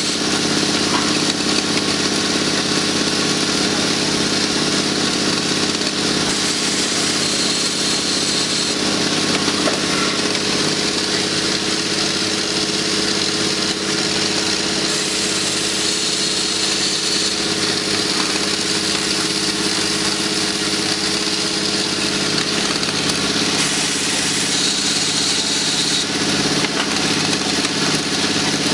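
Automatic needle-bearing assembly machine running: a steady, even mechanical hum with a dense noise layer above it that does not let up.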